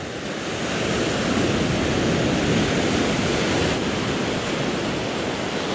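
Ocean surf washing up a sandy beach: a steady rush of broken waves swirling through the shallows, growing a little louder about a second in and then easing off slowly.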